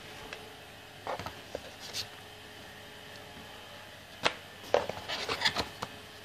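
Hands handling a cardboard box and its packaging: scattered knocks and rustles about a second in, a sharp knock just past four seconds, then a quick cluster of clicks and crinkles near the end.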